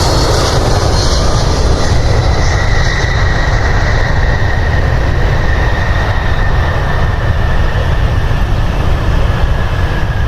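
Jet airliner's engines running loudly: a steady rumble with a high whine that slowly falls in pitch.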